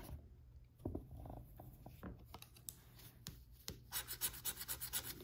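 Scratch-off lottery ticket being scratched: faint, scattered scrapes, then a quick run of short scraping strokes in the last second and a half.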